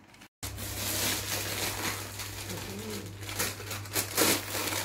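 Christmas wrapping paper crinkling and tearing as a gift is unwrapped, in irregular rustles that are loudest about four seconds in, over a steady low hum.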